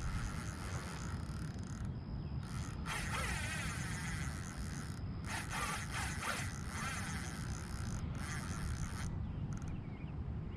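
Spinning fishing reel being cranked in spells while fighting a heavy fish, a rough mechanical whirring, over a steady low rumble.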